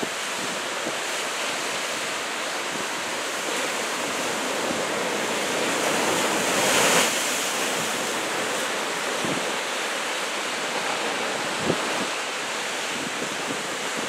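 Ocean surf from a large typhoon swell, a steady rushing wash of breaking waves and whitewater; one wave crashes louder about seven seconds in.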